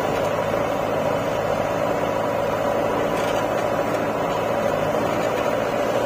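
Diesel engines of a JCB 3DX backhoe loader and a John Deere tractor running steadily together, with no change in pitch or level.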